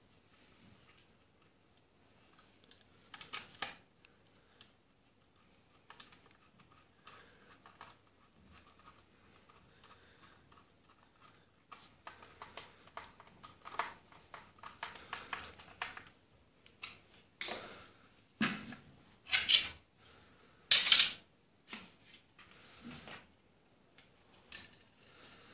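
Hand assembly of a wooden replica gun: small clicks, taps and scraping of a screwdriver working a screw into the wooden parts and of the parts being handled. Several louder knocks and scrapes come about two-thirds of the way through.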